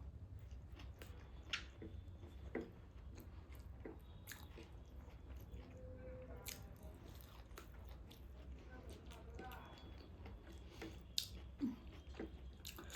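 Quiet close-up eating of taro root with dried meat: soft chewing and biting, with a few sharper clicks scattered through, two of them close together near the end.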